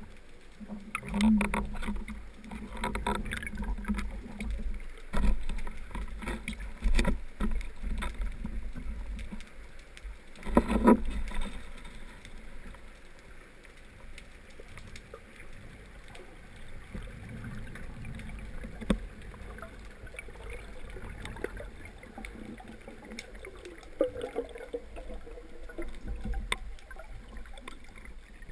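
Muffled rush of water heard through the waterproof housing of a camera mounted on a speargun. A run of knocks and clacks comes over the first ten seconds or so, the loudest about eleven seconds in, then the sound settles into a steadier low wash.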